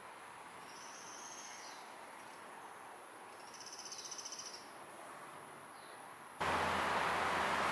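Sunda pygmy woodpeckers giving two short, high, buzzy calls, the second a rapid trill. A loud, steady rushing noise cuts in abruptly near the end.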